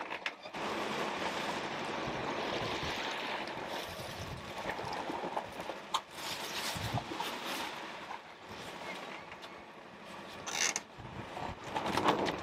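Sailboat under way: a steady rush of water and wind along the hull and rigging, with a couple of brief sharp knocks, one about halfway through and one near the end.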